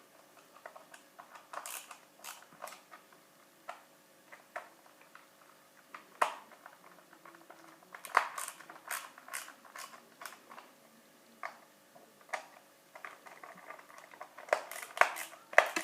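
Small screwdriver driving screws into a PS3 controller's plastic shell: scattered light clicks and taps of metal on screw heads and plastic, coming in busier clusters about halfway through and again near the end.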